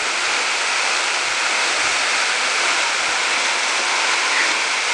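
Steady rush of a waterfall pouring into a shallow plunge pool, an even hiss with no breaks.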